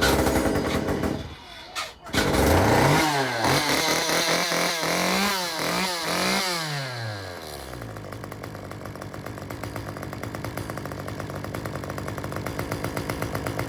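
Stihl MS194T top-handle two-stroke chainsaw starting up: it fires briefly, then catches about two seconds in. It is revved up and down several times, then settles to a steady idle. It squeals on start-up, a noise the repairer puts down to the crankshaft.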